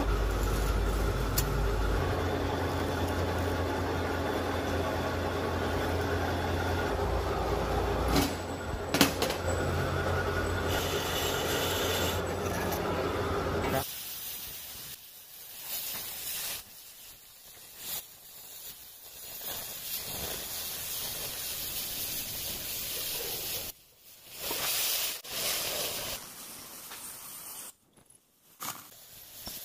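A steady mechanical hum with a low drone for about the first half. Then an oxy-fuel cutting torch hisses as it burns through 25 mm steel plate, in several short stretches broken by brief drops.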